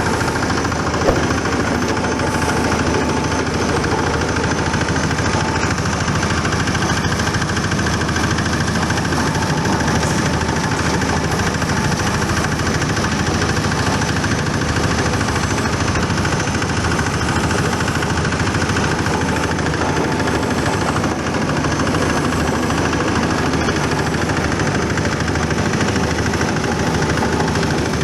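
Foam shredding machine running steadily, a continuous mechanical din with a steady hum, with one sharp knock about a second in.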